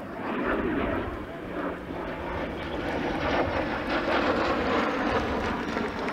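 Jet noise from the single Rolls-Royce Viper turbojet of a Soko G-2 Galeb trainer flying past overhead: a rushing roar that grows louder, with a faint high whine slowly falling in pitch.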